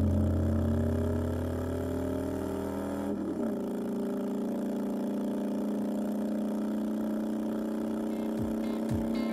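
Harley-Davidson touring motorcycle's V-twin engine under way: the pitch climbs slightly, the revs drop about three seconds in, then the engine runs steady. Near the end, deep kick drums from a music track come in at an even beat.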